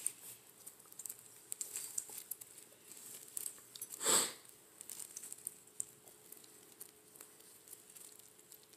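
Kittens lapping and eating a wet mash of canned food and kitten milk replacer from stainless steel bowls: faint, irregular wet clicks and smacks, with a brief louder rustle about four seconds in.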